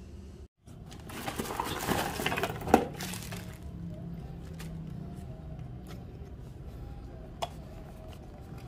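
Clear plastic packaging crinkling and rustling as it is handled, with one sharp click about three seconds in. After that comes quieter handling of plastic pump parts over a faint steady hum.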